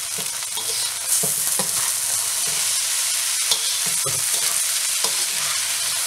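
Rice noodles sizzling in a hot wok as a metal spatula stirs and tosses them, scraping against the pan: a steady frying hiss with irregular scrapes and knocks. White sugar has just gone in and is being stirred through the noodles to melt.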